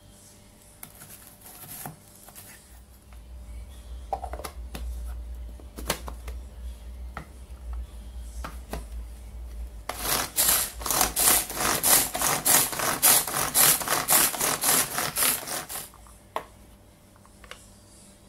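Pull-cord manual food chopper chopping sliced mushrooms: the cord is pulled again and again, about two to three pulls a second for some six seconds, each pull whirring the blades round in the plastic bowl. Before that come a few knocks and handling of the chopper bowl and lid.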